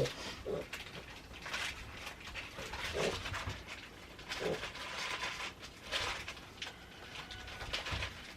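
Piglet grunting and squealing in short, repeated calls while being held and restrained.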